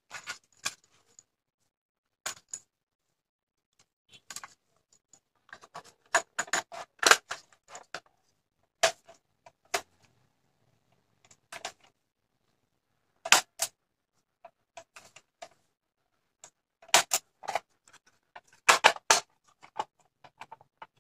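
Scattered sharp plastic clicks and clattering knocks as an old stereo cassette player's deck is handled: a cassette put into the tape well, the piano-key buttons touched and the plastic front panel fitted, with silent gaps between the clicks.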